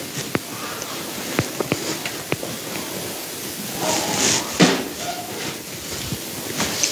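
A hushed room with a steady hiss, broken by a few sharp small clicks in the first couple of seconds and a brief rustle with a knock about four seconds in: people in the pews shifting and handling small things.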